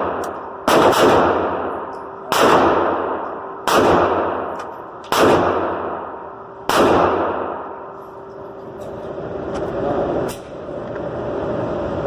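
Semi-automatic rifle fired five times at an even pace, about one shot every one and a half seconds, each shot followed by a long echoing tail. A steady rushing noise fills the last few seconds.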